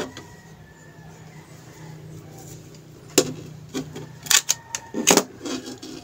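Sharp plastic clicks and knocks from handling a digital multimeter and its test leads: one click at the start, then a quick cluster of clicks and rattles from about three seconds in as the leads are plugged in and handled.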